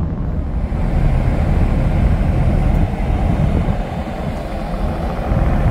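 Steady low rumble with wind buffeting the microphone on a ferry's open top deck, as the ship is being towed off its berth by tugboats.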